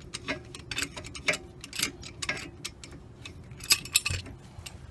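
Irregular light clicks and clinks of hand tools being handled, with two louder clanks near the end.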